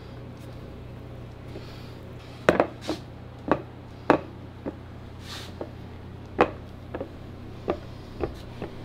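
About a dozen irregular sharp knocks and clatters of chocolate-making utensils start a couple of seconds in: plastic bar moulds and a spatula against a plastic mixing bowl. A steady low hum runs underneath.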